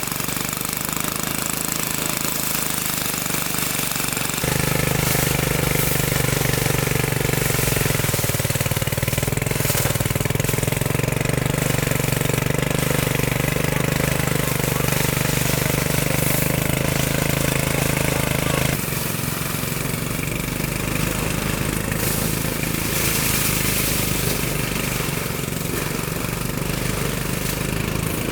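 Small engine-driven machine running steadily. About four seconds in it turns louder with a deeper hum, and it drops back about fifteen seconds later.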